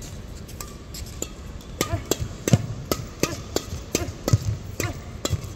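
Badminton rackets smacking a shuttlecock in a fast doubles rally. The sharp hits come more quickly from about two seconds in, and shoes squeak on the court mat between shots. The hits echo in a large hall.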